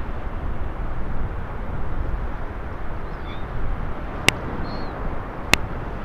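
Steady wind noise on the microphone on an open beach, with a couple of faint gull calls in the middle and two sharp clicks near the end.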